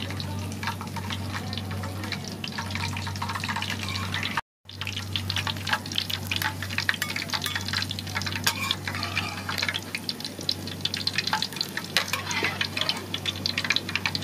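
Sliced garlic frying in hot oil in a wok, the oil sizzling with dense crackling as the chips are lifted out with a mesh strainer. A low steady hum runs underneath, and the sound cuts out briefly about four and a half seconds in.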